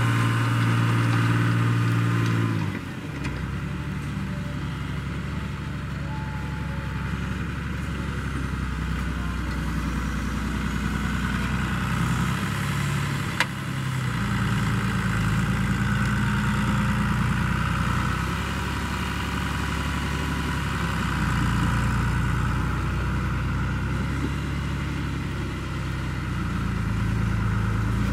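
John Deere 3350's six-cylinder diesel engine working under plough load, pulling a reversible plough, its pitch rising and falling with the load. A louder steady hum stops about three seconds in, and a single sharp click comes near the middle.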